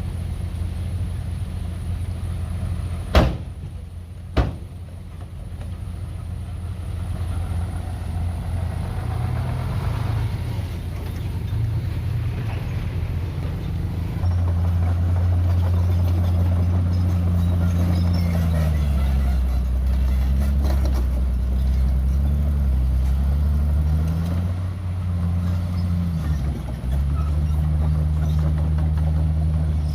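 Heavy diesel earthmoving machinery (dump truck and bulldozer) working: a deep engine hum with its pitch stepping up and down as the revs change, louder from about halfway through. Two sharp metallic knocks about three and four and a half seconds in.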